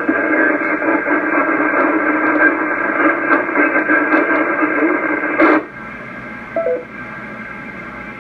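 Weak 10-metre FM repeater signal from a transceiver speaker: a distant station's transmission buried in static, too noisy to copy. It cuts off about five and a half seconds in, followed by a short two-note beep from the repeater and then a lower steady hiss.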